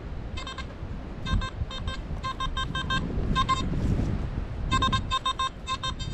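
Metal detector (Nokta Makro Simplex) beeping as its coil is swept over the sand: short, clipped beeps at one steady mid pitch, coming in quick clusters of two to six. They signal a buried metal target. Low wind rumble on the microphone underneath.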